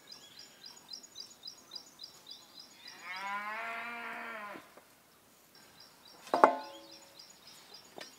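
A cow moos once, a single call of about a second and a half, about three seconds in. A sharp knock comes about six seconds in, and faint, regular high chirping runs underneath.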